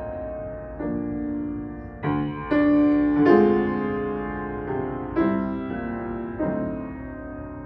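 Piano accompaniment playing slow, soft chords, a new chord struck about every second and each one ringing on and fading.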